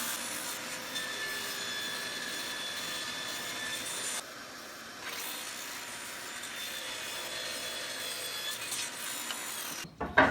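Power saw running and cutting wood frame pieces, with a short drop partway through. It stops near the end, followed by a single knock.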